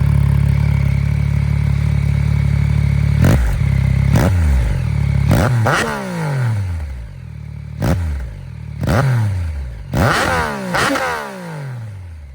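2025 Yamaha MT-09 SP's inline-three engine, breathing through a Yoshimura AT2 exhaust with the dB killer fitted, idling with a slight gurgle. About three seconds in, it is revved in around seven quick throttle blips, each jumping up sharply and falling back, and it is pretty loud when revved.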